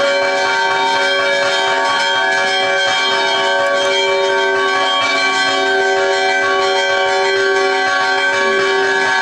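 Church bells ringing continuously, their tones overlapping into a steady, unbroken ring.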